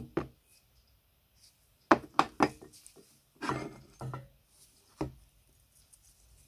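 Cast-iron parts of an old umbrella stand knocking against each other and on a wooden workbench as they are taken apart by hand: three quick knocks about two seconds in, then single knocks about a second apart.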